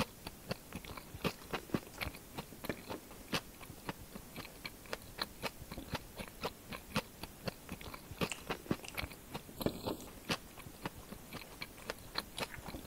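Close-miked chewing: a bite into a fried snack, then crunching and wet mouth clicks, about three a second.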